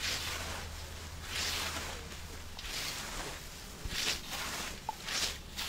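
Hand scythes swishing through tall meadow grass, two people mowing, with a cutting stroke about once a second.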